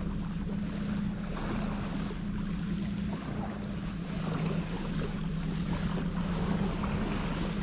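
A steady low motor hum that holds one pitch throughout, over a hiss of wind on the microphone and sea noise.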